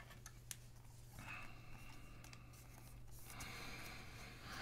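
Faint rustling and sliding of trading cards and pack wrapper being handled, in two stretches with a few light clicks, over a steady low hum.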